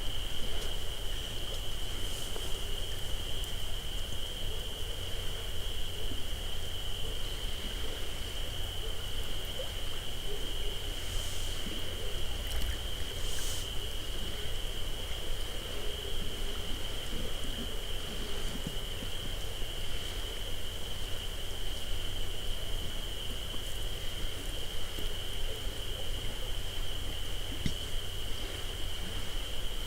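Night insect chorus picked up by a parabolic microphone: one steady, unbroken high trill, over a constant low rumble. Two brief hissy rustles come about eleven and thirteen and a half seconds in.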